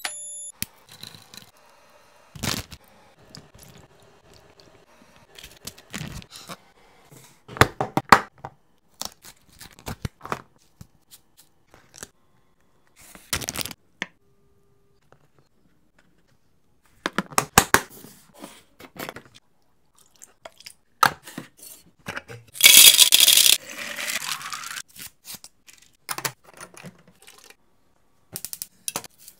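A run of separate kitchen-prep sounds: knocks, clicks and scrapes of utensils and containers, including a knife cutting a seasoned boiled egg on a bamboo cutting board. About 23 seconds in comes a loud rustling, tearing burst lasting about a second.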